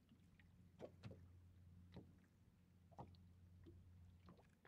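Near silence on a boat at rest: a faint steady low hum, with about five soft knocks roughly a second apart.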